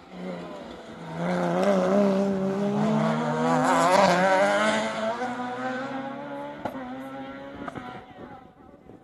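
Rally car engine revving hard as the car comes through a junction and accelerates away, its pitch climbing and loudest a few seconds in, then fading out near the end. A couple of sharp cracks sound as it pulls away.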